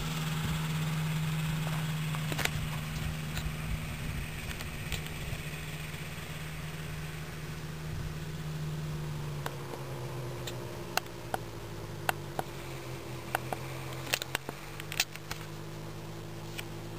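Motorised hang glider trike's engine running steadily while taxiing, its note dropping lower about halfway through. A few sharp clicks in the second half.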